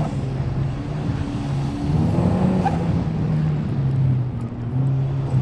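Turbocharged 1.8-litre Mazda BP four-cylinder engine of an Exocet tube-chassis track car running under load at speed, heard from the open cockpit. The engine note rises briefly about two seconds in, then settles back to a steady drone.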